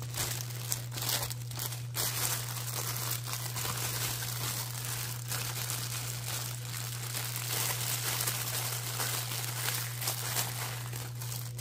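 Clear plastic wrapping crinkling irregularly as it is handled, over a steady low hum.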